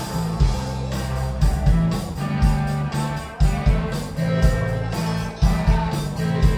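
Rock band playing live: electric guitars, bass and drums with a steady beat, heard from the audience floor of a club.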